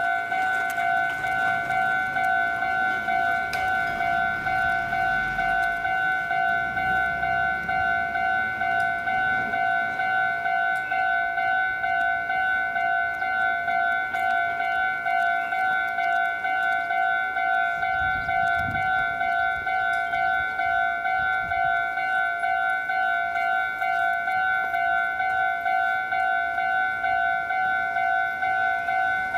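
Japanese railway level-crossing alarm ringing continuously, an electronic bell tone repeating about twice a second: the crossing is closed, signalling an approaching train.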